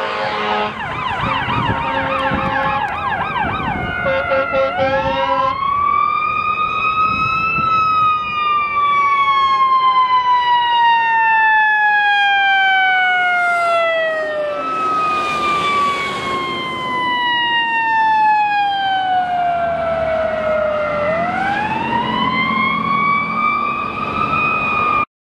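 Fire truck sirens on a convoy of responding fire apparatus. A fast yelping sweep fills the first few seconds, then a wail climbs, falls slowly over several seconds, and climbs again near the end. The engines of the heavy trucks rumble underneath as they pass.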